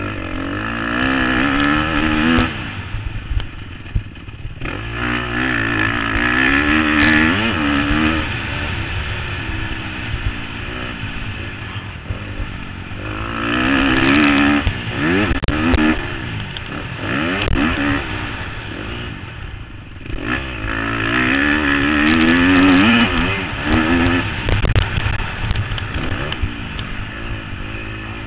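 2013 KTM 250 SX-F four-stroke single-cylinder motocross engine revving hard and climbing through the gears in about four bursts, backing off the throttle between them, heard from the rider's helmet with wind rushing over the microphone. Scattered clicks and clatters come through along the way.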